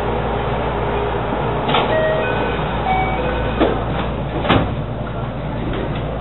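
JR West 223 series 2500 electric train standing at a platform, its onboard equipment humming steadily. A few short scattered tones sound a couple of seconds in, followed by sharp clunks, the loudest about four and a half seconds in.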